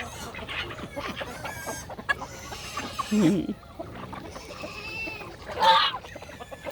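A mixed flock of chickens, roosters, ducks, geese and turkeys calling together while they feed: overlapping clucks and squawks, with a rooster crowing loudly near the end.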